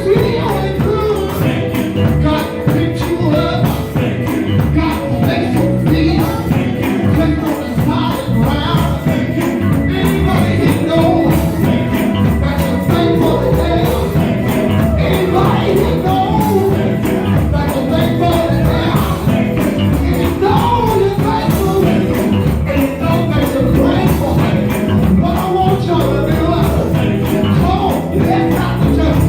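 Live gospel quartet music: the band plays with electric guitar, bass and keyboards, a tambourine shakes along with the beat, and voices sing over it.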